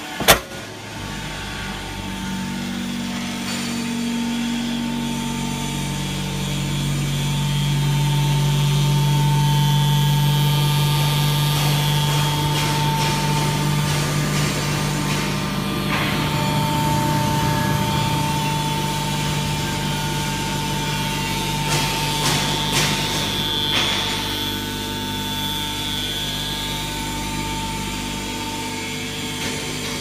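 Hydraulic power unit of an Enerpat automatic metal swarf baler, its electric motor and pump running with a steady hum and whine. A sharp click sounds just after the start, and a few metallic knocks come later.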